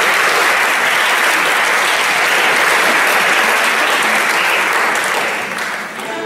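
Audience applauding, steady clapping that tails off slightly near the end.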